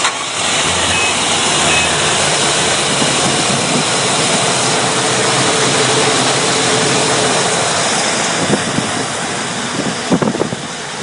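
Starboard 575 hp marine engine of a twin-engine Fountain 35 Lightning powerboat running steadily, heard up close in the engine compartment, with a few short knocks near the end.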